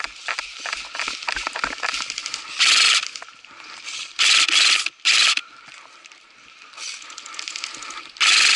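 Airsoft electric gun firing rapid full-auto bursts: a short burst, a half-second burst and a brief one in the middle, then a longer burst starting near the end. Regular low thuds and rustling come before the first burst.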